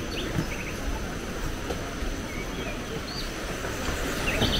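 Tropical forest ambience: a steady high insect drone with scattered short bird chirps over a low, even rumble.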